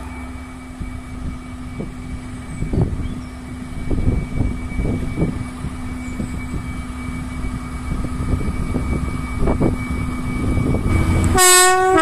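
Class 73 electro-diesel locomotive running into a station at the head of a test train, its wheels knocking over the rail joints above a steady hum. About a second before the end it sounds a loud horn that starts abruptly.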